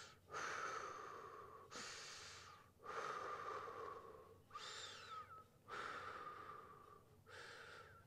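A man breathing slowly and deeply, alternating inhales and exhales: about six long breaths, each a second or more, separated by brief pauses. This is controlled breathing while he braces his core.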